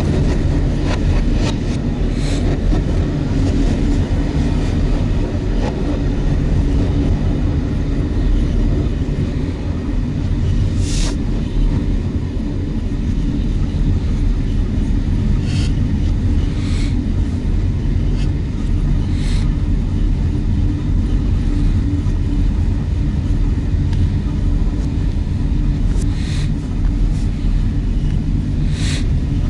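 Steady low rumble of a moving train, heard from inside the locomotive cab, with a few short sharp clicks as the wheels cross rail joints and points.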